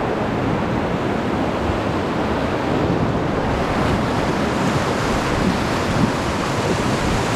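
Whitewater rushing around a raft on a river rapid: a loud, steady rush of water noise that grows brighter about halfway through.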